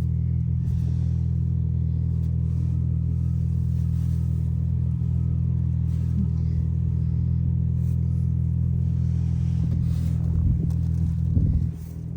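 Motor vehicle engine running steadily at idle, a low even hum; it swells briefly near the end, then drops.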